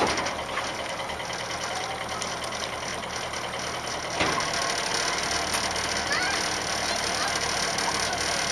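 Evinrude outboard motor idling, with a single knock about four seconds in, after which it runs slightly louder.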